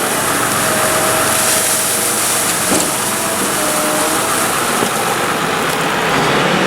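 Diesel engines of farm machinery running steadily as a tractor and trailer come in with a load of chopped maize, with a light knock about three seconds in and another near five.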